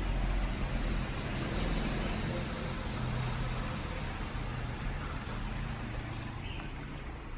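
Royal Enfield Thunderbird 350's air-cooled single-cylinder engine idling steadily, a low even thump.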